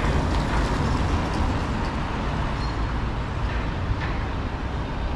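Steady road traffic noise on a busy city street: a continuous low rumble of passing vehicles with no single vehicle standing out.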